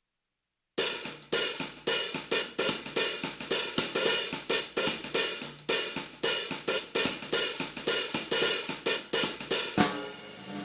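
Music: a fast, even cymbal and hi-hat rhythm over a low bass note, starting about a second in and thinning out near the end.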